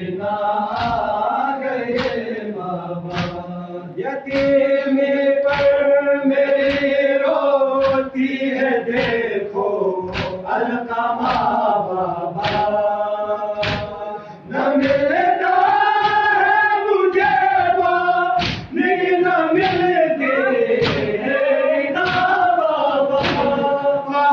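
A group of men chanting a Shia noha (Muharram lament) together, with sharp rhythmic thumps about once a second from hands striking chests in matam, in time with the chant.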